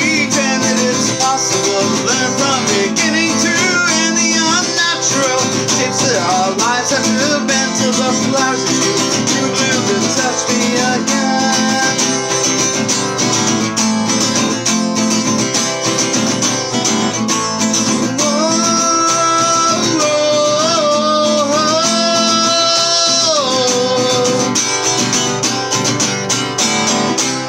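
Music: a guitar, likely acoustic, playing the closing bars of a song, with long held notes from about two-thirds of the way in, before the music fades out at the very end.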